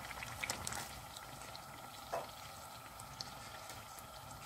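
Hot oil sizzling and bubbling steadily around sfenj doughnuts frying in a pan, with small scattered crackles and a short knock about two seconds in.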